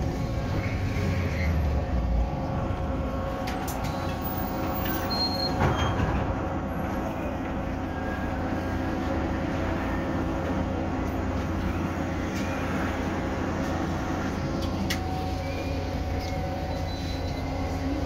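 Cabin of a VMZ-5298.01 Avangard trolleybus under way: the steady hum and whine of its electric drive over road rumble, with one sharp knock about six seconds in.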